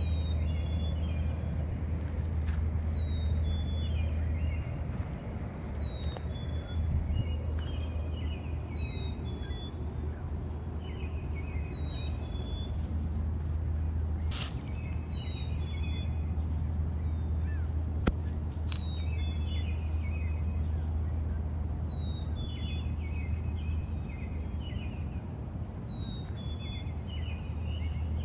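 A songbird singing the same short phrase of quick notes stepping downward, repeated about every three seconds, over a steady low rumble.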